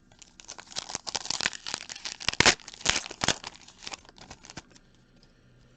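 Foil trading-card pack wrapper being torn open and crinkled: a dense run of crackles that stops about a second before the end.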